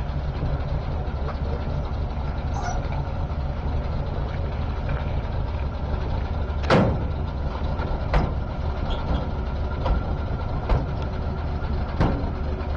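Bucket truck's engine idling steadily, with about five sharp knocks and clicks from its metal utility-body compartment doors and latches being worked, the loudest about seven seconds in.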